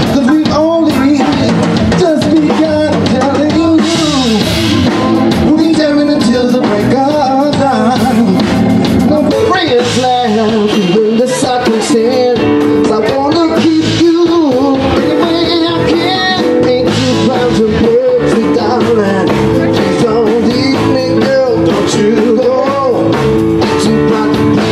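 Blues song with a lead singing voice over guitar and a drum kit, playing steadily throughout.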